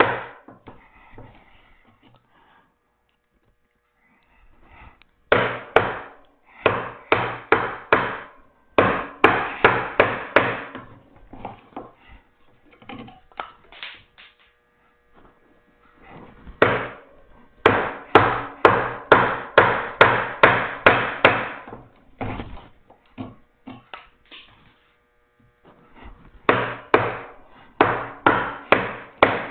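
A chisel being struck to chop a mortise by hand in oak: three runs of sharp strikes at about two to three a second, with pauses of a few seconds between runs.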